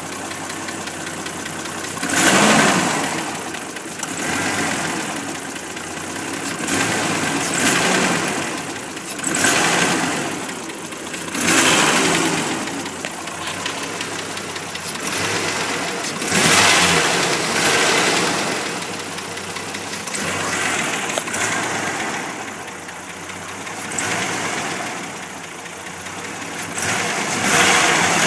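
The 4.0-litre inline-six of a 1989 Jeep Comanche running and making odd sounds, a sign that it is acting up. It swells and falls back irregularly every few seconds.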